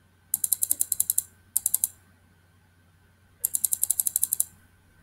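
Computer mouse scroll wheel being rolled, clicking through its notches in three quick runs of ticks, about ten a second.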